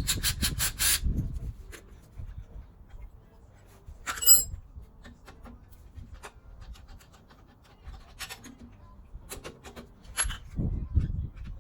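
Hand tools working the alternator bolts on a 12-valve Cummins: a quick run of ratchet-like clicks at the start, then scattered metal clinks and knocks, one sharp clink about four seconds in and a few more near the end.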